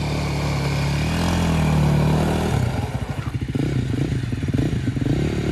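Sport quad's engine running, revving up about a second in, then turning into a choppy, pulsing engine note with rising revs as the quad pulls away.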